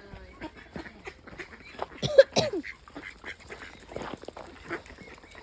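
Ducks quacking in a run of short calls, with the loudest burst of quacks about two seconds in.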